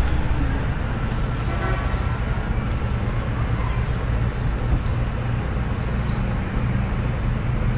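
Steady low background hum with about a dozen short, high chirps scattered through it, often in pairs.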